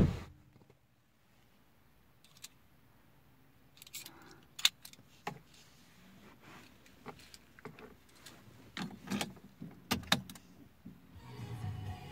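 Car keys and key fob jingling and clicking in the hand, with sharp clicks as the key is fitted at the steering column, after a car door thud at the very start. About a second before the end a low steady rumble begins.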